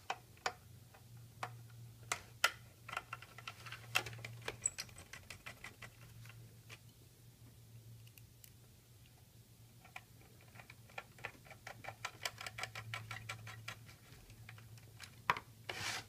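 Screws being driven into the back of a BMW CD53 radio's metal chassis with a screwdriver: runs of small, quick metallic clicks and ticks, dense for the first few seconds and again over the last several, with a sparser stretch between.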